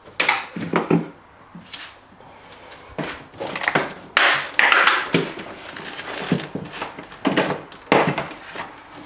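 Plastic light cover of a Samsung RS21 fridge being prised and pulled off the compartment's back wall: irregular knocks, creaks and scraping rustles of plastic in several bursts, the longest from about three to five seconds in.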